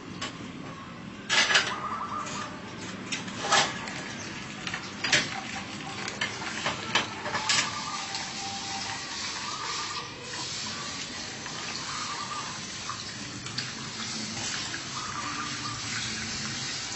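Glass and metal clinking and knocking for several seconds as a young green coconut is handled and set onto a metal piercing spike, then a steady splashing of coconut water running from the pierced coconut into a glass.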